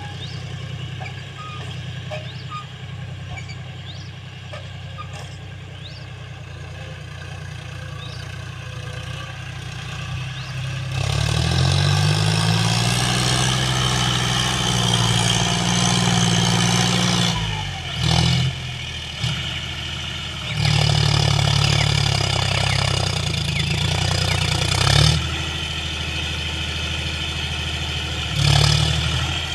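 A John Deere tractor's diesel engine runs steadily at first. About a third of the way in it gets louder, its pitch rising and then sinking again over several seconds. Short bursts of revving follow in the latter half.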